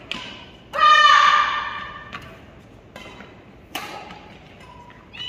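Badminton rally in a large hall: sharp cracks of rackets striking the shuttlecock, with a loud high-pitched yell from a player about a second in that holds for about a second and fades.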